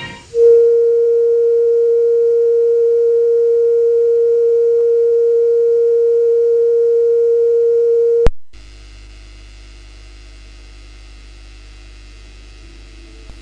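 A television station's sign-off test tone: one loud, steady pure tone held for about eight seconds. It cuts off with a click, leaving a low electrical hum and faint hiss.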